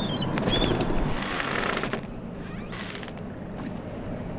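Outdoor city ambience: a steady wash of rumbling noise, with a few short bird chirps in the first second and bursts of rustling, hissing noise later.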